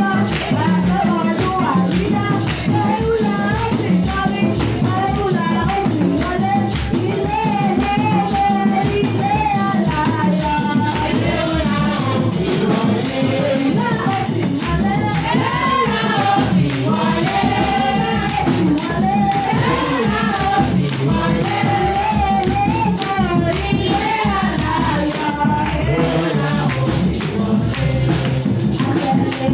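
Congregation singing together over drums and shaken rattle or tambourine percussion keeping a steady beat.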